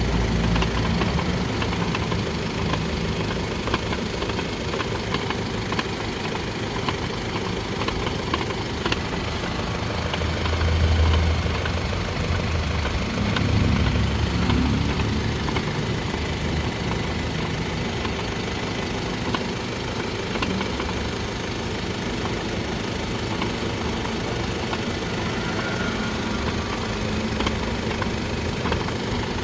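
Mercedes-Benz GLE 350de plug-in hybrid driving with a steady grinding noise from its transfer case, the sign of a failing transfer case. The low rumble grows louder for a few seconds about a third of the way in.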